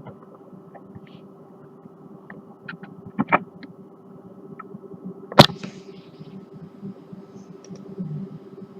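Steady low electrical hum with a faint background hiss, broken by a few short sharp clicks: two close together a little after three seconds in, and a louder one about five and a half seconds in.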